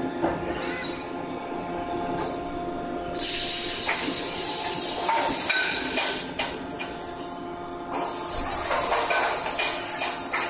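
A loud, steady hiss from a jet blowing at the hydraulic forging hammer's dies switches on about three seconds in, stops for a moment, and comes back near the end. Under it is the steady hum of the forging cell's machinery, with a few light metallic knocks.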